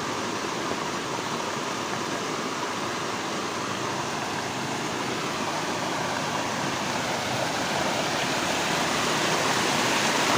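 Heavy rain pouring down with water rushing, a steady even rush that grows slightly louder toward the end.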